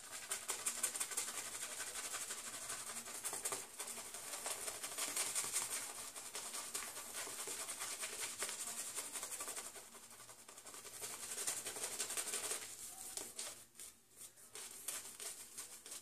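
Omega boar-bristle shaving brush scrubbing shaving cream into a lather directly on a stubbled, bearded face, a fast, crackly bristly swishing. It breaks off briefly about ten seconds in, starts again, then dies down over the last few seconds.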